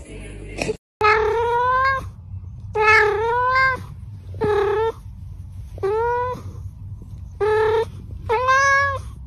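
Domestic cat meowing six times, each meow drawn out for up to a second, with short pauses between them.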